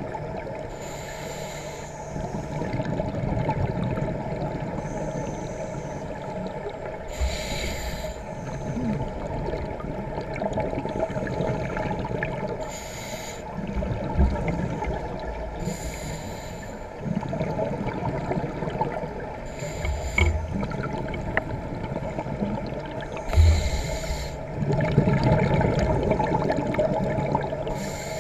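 Scuba diver breathing through a regulator underwater: about six hissing breaths a few seconds apart, with bubbling exhalations, over a steady low hum.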